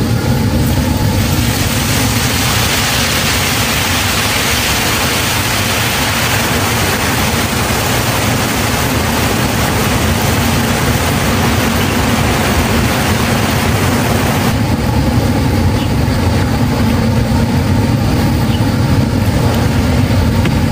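Hot oil in a large wok sizzling and frothing hard as ciba chili paste is added and stirred in, a dense hiss that eases about two-thirds of the way through. Under it runs the steady low roar of the burner.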